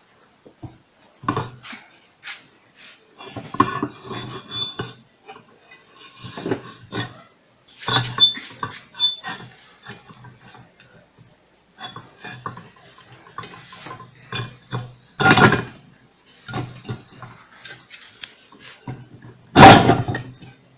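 Hand tools and small metal parts clinking and knocking against an orange juicer's plastic housing during reassembly: irregular clicks and taps, with a sharper knock about fifteen seconds in and the loudest knock near the end.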